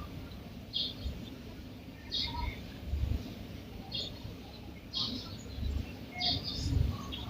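A sleeping woman snoring through her open mouth: two low snoring breaths, the second longer and louder. Birds chirp briefly about once a second throughout.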